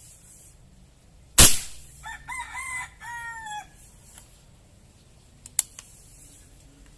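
A single loud airgun shot about a second and a half in, from an Eskopeta CO2 airgun charged with air from a PCP pump instead of CO2. A rooster crows right after it. A few sharp, quieter clicks follow near the end.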